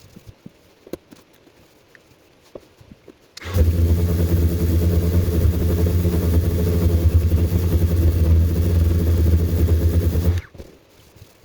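Power sander working wood. It is quiet at first with a few light taps, then the sander starts about a third of the way in, runs with a steady low motor hum for about seven seconds, and stops shortly before the end.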